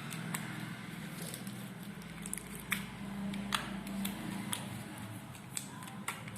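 Slime being squished and worked by hand, with scattered sharp little pops and clicks over a steady low hum.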